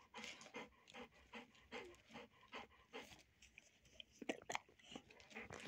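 Dog panting softly and steadily, about three breaths a second.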